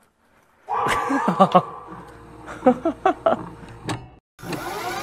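Recording being rewound: garbled, warbling voice sounds with a few clicks. It breaks off just after four seconds in, then a steady hiss with a hum.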